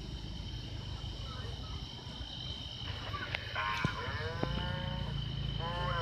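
Steady high-pitched chirring of night insects over a low background hum. In the second half come two drawn-out calls that fall slightly in pitch, with a sharp click just before the first.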